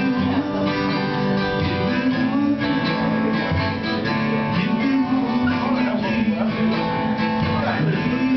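Acoustic guitar strummed in a steady rhythm, its chords changing every second or two.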